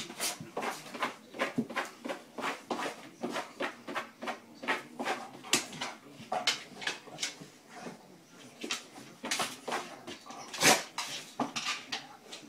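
A golden retriever pawing, nosing and scrabbling at a mat on a wooden floor: a steady run of short scuffs and claw clicks, about two or three a second, with one louder thump near the end.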